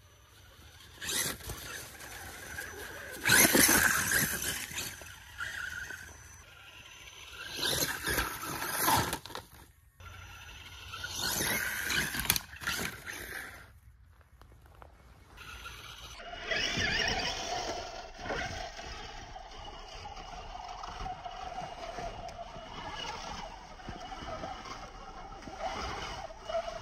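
Axial Wraith RC rock racer's electric motor and geartrain whining as it drives over snow, leaves and a snow-covered log, first in several loud bursts with sudden breaks between them, then as a steadier whine in the second half.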